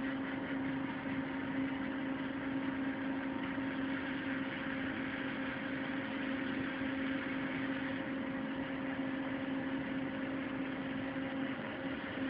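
Electric servo motors of two Lego Mindstorms NXT robots whirring as the robots drive, a steady hum with a constant tone and a hiss above it.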